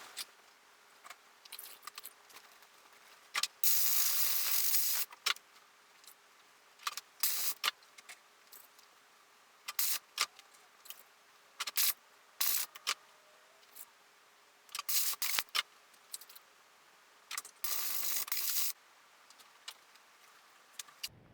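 Compressed-air blow gun hissing in repeated short bursts and a few longer blasts, blowing rinsed nitro engine parts dry after ultrasonic cleaning, with light clinks of metal parts between the bursts.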